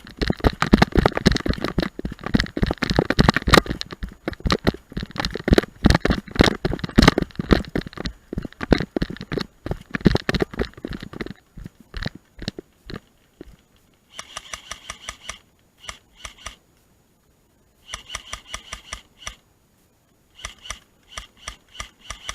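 Airsoft guns firing. For about the first eleven seconds there is a dense, irregular clatter of rapid shots and knocks. In the second half come four short bursts of quick, evenly spaced clicking with pauses between them.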